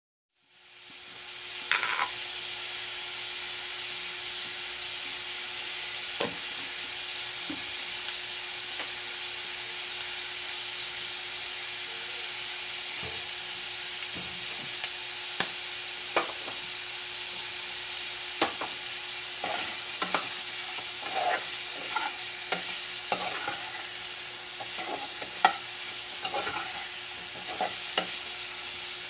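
Pork pieces sizzling as they fry in a pot, a steady hiss, with a utensil clicking and scraping against the pot as the meat is stirred, more often in the second half.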